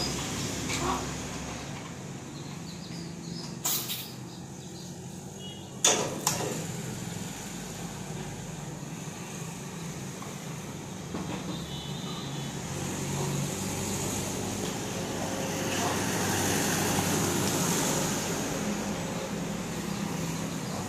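Steady low hum of a running motor and road traffic, with a sharp knock about four seconds in and a louder double knock about six seconds in; the traffic noise swells as a motorcycle rides past near the end.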